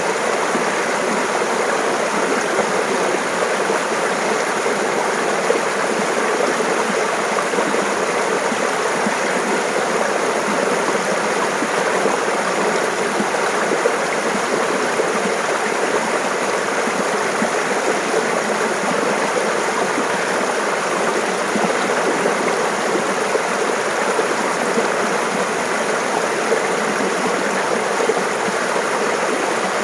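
Mountain stream running and babbling over rocks, a steady even rush of water.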